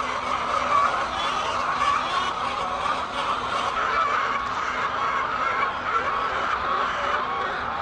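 A large flock of chickens clucking and calling together, many overlapping voices in a steady din.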